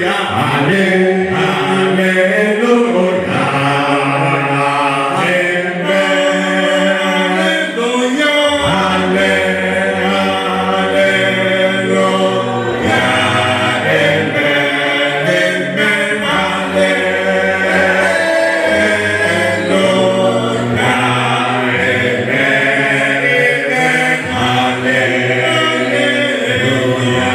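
A choir singing a hymn a cappella, several voices in harmony holding long notes.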